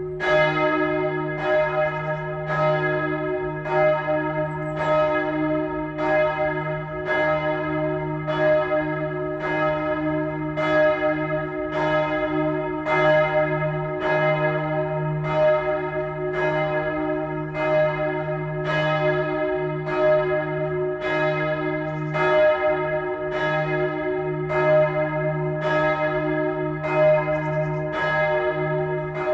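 A single swinging church bell with strike note E-flat (es'), rung by the church's electric ringing system, striking evenly a little less than once a second, each stroke ringing on under the next. The first stroke comes right at the start.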